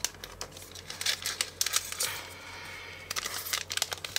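Clear plastic packaging crinkling and paper sticker sheets rustling as they are slid out and handled. The crackles come quickly one after another, with a smoother sliding rustle a little past the middle.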